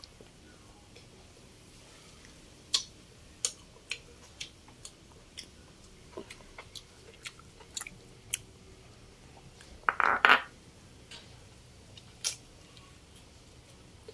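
A person eating rice porridge and chicken close to the microphone: chewing with sharp smacking clicks scattered through, and a louder cluster of sounds about ten seconds in.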